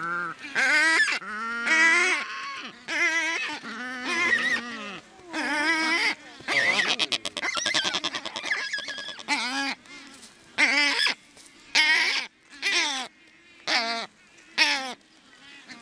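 Black-browed albatrosses calling at the nest as an adult feeds its downy chick: a string of short, loud, wavering honking calls about once a second, with a fast rattling run in the middle.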